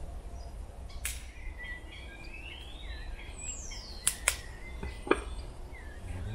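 Wild birds chirping and whistling, with one falling whistle a little past the middle, and a few sharp clicks or knocks, the loudest about five seconds in.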